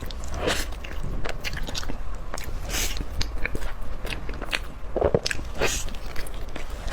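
Close-miked eating: biting and chewing food, a run of short sharp clicks with a few louder bites.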